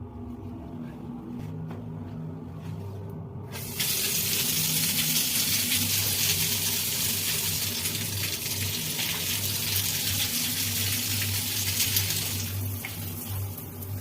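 Water gushing from a plumbing fixture: it starts suddenly about four seconds in, runs steadily, and eases off near the end, over a steady low hum.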